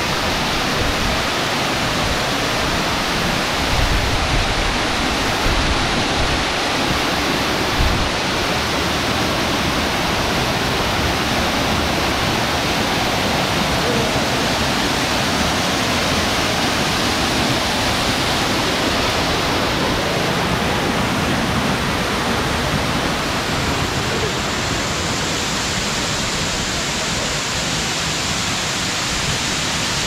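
Waterfall close by: a loud, steady rush of falling water, with a few low thumps between about four and eight seconds in.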